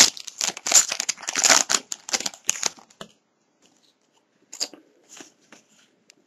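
A foil trading-card pack wrapper being torn open and crumpled: a dense crinkling and tearing that stops about three seconds in, followed by a few faint rustles as the cards are handled.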